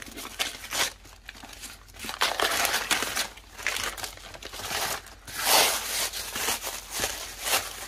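Tissue paper and wrapping paper crinkling and tearing as hands rip it off a cardboard tube, in irregular rustling bursts, with the loudest tear a little past halfway.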